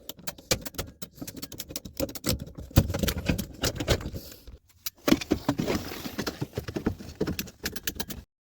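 Rapid, irregular clicking and clattering of hand tools at work on an air-conditioning coil's condensate drain line as it is cut, with a short pause partway through; the sound cuts off suddenly near the end.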